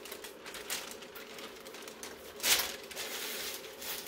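A sheet of brown cover paper rustling and crackling as it is handled and laid over a sock on a heat press platen, with one louder rustle about two and a half seconds in.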